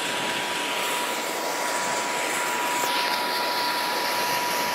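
Pond fountain jet splashing into the water: a steady rushing noise, with a thin steady whine alongside it.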